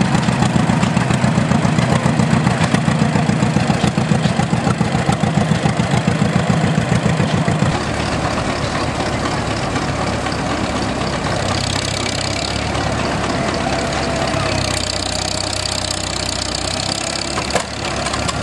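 Antique John Deere two-cylinder tractor engine running with a strong, even pulsing exhaust beat as the tractor drives past. About eight seconds in, it gives way to a steadier, quieter drone of tractor engines idling.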